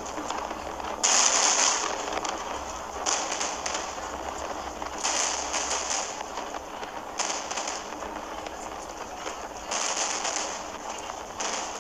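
Aerial fireworks bursting in a series of booms about every two seconds, the loudest about a second in, with crackling between the bursts.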